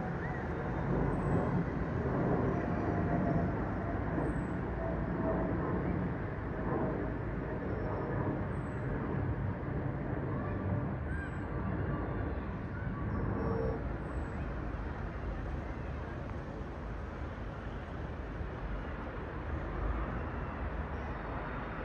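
Low, steady rumble of distant engine noise, slowly fading.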